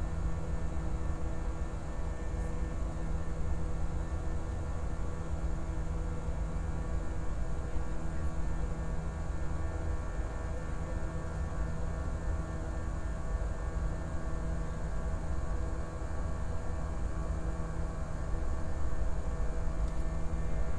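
Passenger aircraft cabin noise in flight: a steady low rumble of engines and rushing air with a constant hum of several steady tones.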